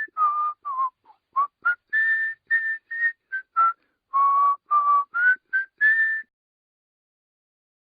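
A whistled tune of about sixteen short notes, moving between lower and higher pitches, that stops about six seconds in.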